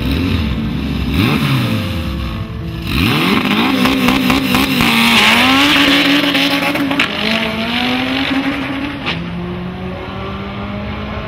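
Honda Civic hatchback drag car's engine revving in short bursts, then run hard with loud tire noise as the car launches and pulls away down the strip. The engine pitch climbs and drops back at each gear change, with a couple of sharp pops along the way.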